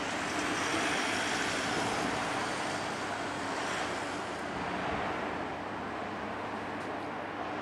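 Tsurumi Line electric train running past, a steady rumble with a faint high whine that slowly fades.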